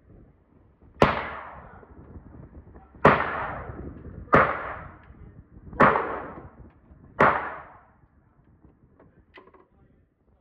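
Five gunshots fired at an uneven pace, one to two seconds apart, each followed by a short echoing tail.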